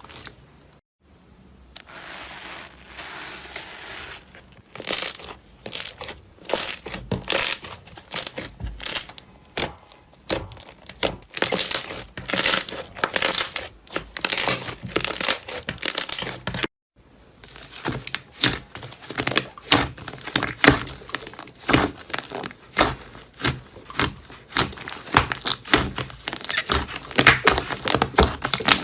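Crinkling and crackling in many short, quick bursts, as of a crinkly material being squeezed and pressed, with a brief silent break about 17 seconds in.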